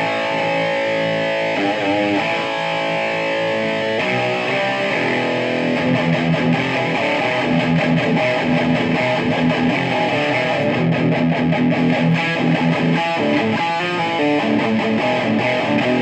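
Electric guitar played through a Peavey 6505+ tube combo amp with its stock speaker. Ringing chords change every couple of seconds, then a steady rhythmic part starts about six seconds in.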